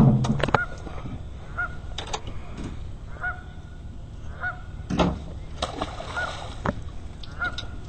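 Geese honking repeatedly, about once a second. About five seconds in there is a knock followed by a splash as a fish is dropped back into the lake.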